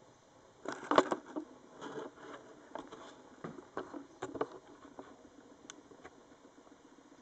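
A scatter of small clicks, knocks and rustles, busiest in the first half, with the loudest knock about a second in, then only a few light ticks.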